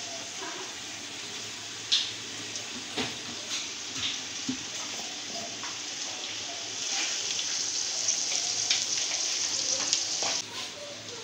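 Mixed vegetables (potatoes, carrots, peas) frying in oil in a pot, a steady sizzle that gets louder about seven seconds in and drops off near the end. A few sharp clicks and knocks come in the first half.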